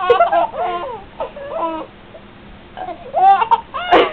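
A young child laughing and babbling in short high-pitched spells, amused by burping.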